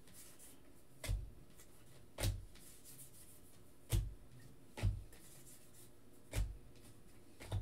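A stack of Bowman baseball cards being flipped through by hand, each card slid to the back of the stack with a short click; six clicks at irregular intervals about a second apart.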